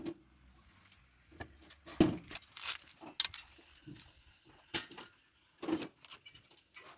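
Scattered knocks and clinks, a handful of separate hits a second or so apart, the sharpest about two and three seconds in.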